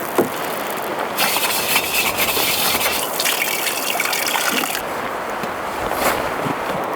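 Water running and splashing onto dishes as they are rinsed and scrubbed by hand. The stream gets heavier about a second in and eases off near the five-second mark.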